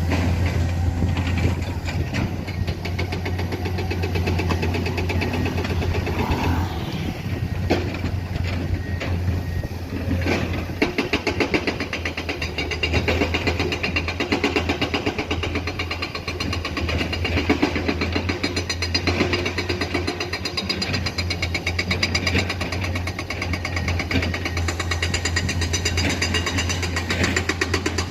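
Diesel engines of Komatsu hydraulic excavators running steadily, with a constant low hum and a fast, even firing pulse.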